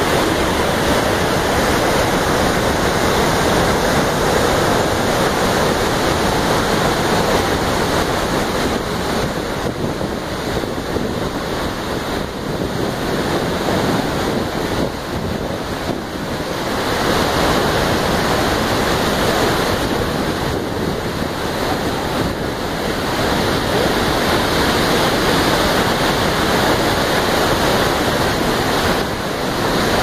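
Steady loud roar of the Iguaçu Falls: a huge volume of water plunging into the gorge and churning below, a continuous rushing noise that eases a little around the middle.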